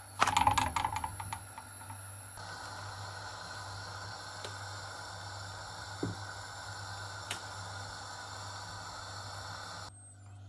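A quick clatter of taps and clicks as rolled pita dough is handled and laid onto a flat iron tawa, then a steady hiss from the gas burner and hot pan while the pita cooks. There is a soft thump about six seconds in.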